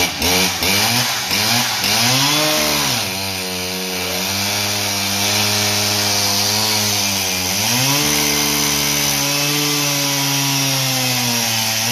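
Farmertec G395XP chainsaw, a two-stroke Husqvarna 395XP clone, running on a chainsaw dyno: blipped several times in the first few seconds, then held at high revs, dipping briefly about eight seconds in before climbing back, and dropping off near the end.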